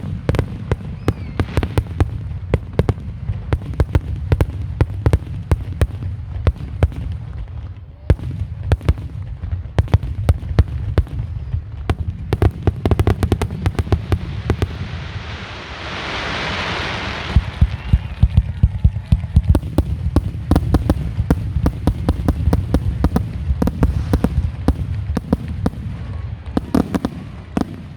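A professional aerial fireworks display: a rapid, unbroken barrage of shell bursts and sharp reports, several a second, over a deep rumble. A hissing burst swells and fades for about a second and a half just past the middle.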